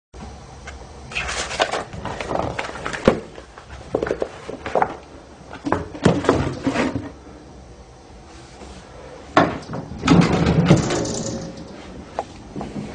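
Handling noise from a handheld camera: irregular knocks, clicks and rustles, with a louder rustling stretch about ten seconds in.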